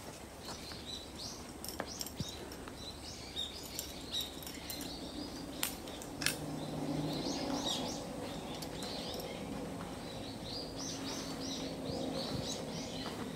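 Small birds chirping in many short, quick calls throughout, with two sharp metallic clicks about six seconds in.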